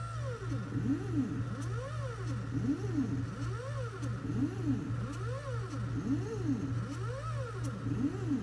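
Shapeoko 2 CNC machine's stepper motors whining as it draws with a marker. The pitch rises and falls in smooth arches about once a second as the axes speed up and slow down along the letter outlines, over a steady low hum.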